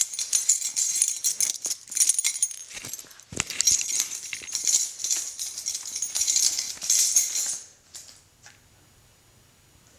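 Metal studs and buckle of a studded leather dog collar jingling and rattling irregularly as a puppy shakes and drags it about. The jingling stops about three-quarters of the way through.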